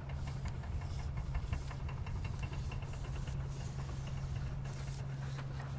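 Harbour tour boat's engine running steadily as the boat cruises past: a low hum with a rapid, even knock, about six beats a second.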